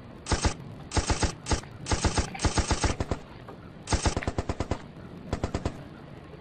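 A cat chattering: several quick runs of sharp clicks, roughly ten a second, with short pauses between the runs.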